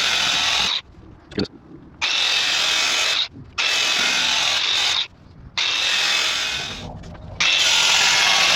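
A power sanding wheel with 60-grit paper running with a high whine as it grinds down fiberglass on a boat hull. It cuts out briefly several times.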